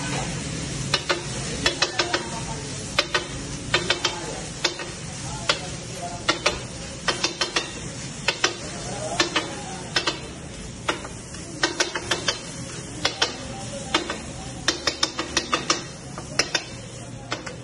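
Metal spatula clanking and scraping on a large flat iron tawa as pav bhaji is chopped and mashed, in irregular quick strikes, often two to four in a row. Under it runs a steady sizzle from the mixture frying in butter.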